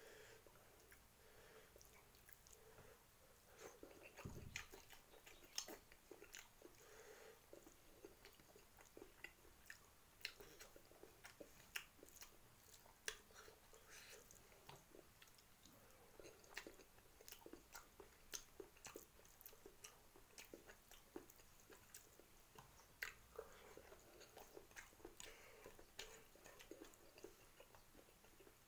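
Quiet, close-up mouth sounds of a person chewing and eating instant noodles and rice by hand: many soft, irregular smacks and clicks.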